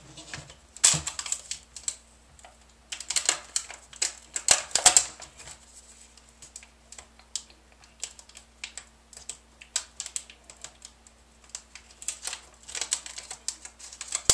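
Irregular small clicks and taps of fingers working a laptop's LCD cable connector and its tape on the back of the screen panel, which rests on the keyboard. The clicks come in louder clusters about a second in, from about three to five seconds, and again near the end, as the fiddly connector resists being reseated.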